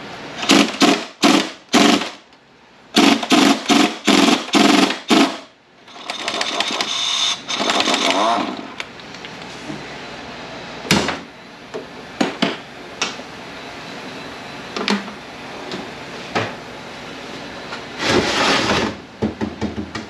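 Air wrench with a 12 mm Allen socket hammering on a bolt at the front of an MT82 manual transmission case: two bursts of rapid blows, then a longer steadier run as it works the bolt loose. After that come single metal knocks and clatter, and a scraping rush near the end as the heavy case is shifted on the bench.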